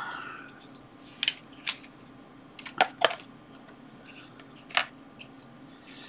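A handful of short, sharp plastic clicks and taps, spread out with pauses between them: heat-shrink tubing being picked out of a clear plastic parts box.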